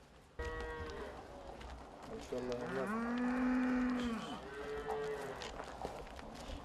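Cattle mooing: three calls in a row, the middle one the longest and lowest, rising and falling in pitch over about two seconds.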